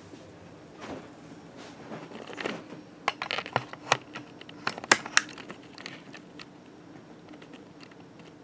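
Handling noise: a scatter of sharp clicks and light rustles, most of them bunched together in the middle, over a faint steady background hum.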